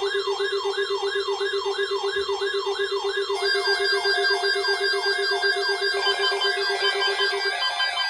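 Electronic alarm and siren tones layered together. A pulsing steady buzz sits under a tone that sweeps downward about two and a half times a second, and more alarm tones join in partway through.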